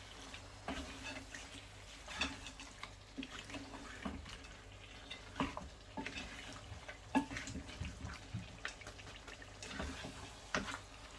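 Spoon stirring a thick chicken curry of spices and chopped tomatoes in a pan over a raised flame, with irregular scrapes and knocks against the pan over a faint sizzle.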